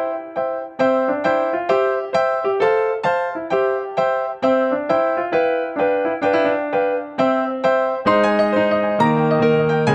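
Background music: an electric piano playing a repeated melody of plucked-sounding notes, about two a second, with lower chords joining near the end.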